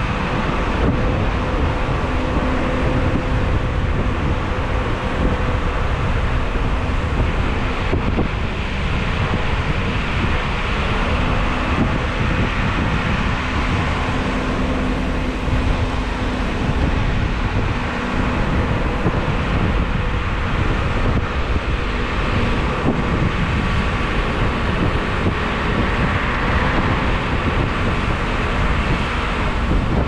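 Wind buffeting the microphone over a steady rushing noise, with a faint low hum running through it.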